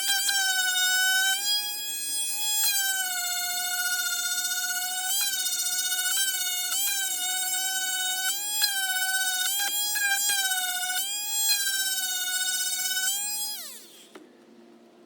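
A handheld electric power tool running with a steady high whine, its pitch sagging briefly several times as it is pressed into the work. Near the end it is switched off and winds down, the whine falling in pitch as it fades.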